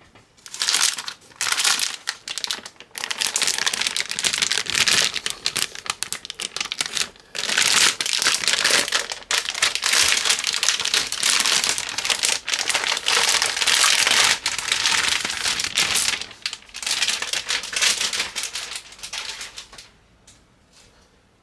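Packaging being handled and crinkled: a dense crackling rustle in long stretches with brief pauses, dying away about twenty seconds in.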